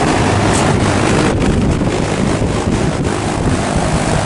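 2019 Carrier Gemini 7.5-ton heat pump outdoor unit running steadily in heat mode: a fan air rush over a low compressor hum, with wind noise on the microphone.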